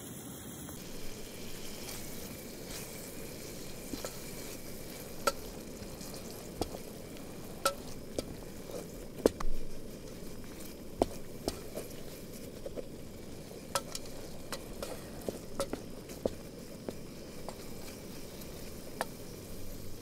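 Diced carrot, celery and onion sizzling in an aluminium billy pot, stirred with a wooden spoon that scrapes and knocks against the pot in scattered sharp clicks over a steady sizzle.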